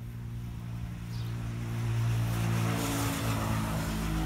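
A motor vehicle passing: its engine hum and tyre noise swell to a peak about two to three seconds in, then ease off.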